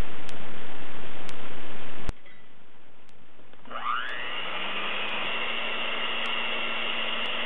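A Proctor Silex electric hand mixer starts up about halfway through, its whine rising as the motor spins up, then runs steadily as its beaters whisk a thin batter in a steel bowl. Before that, a steady loud hiss with a faint tick about once a second cuts off suddenly.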